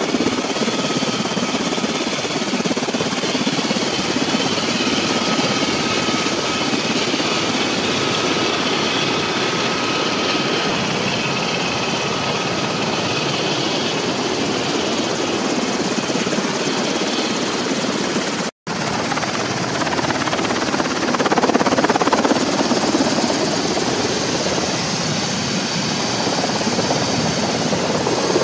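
MH-60 Seahawk helicopter running, a steady loud rush of engine and rotor noise with a faint steady whine in the first half. The sound cuts out for an instant about two-thirds of the way through.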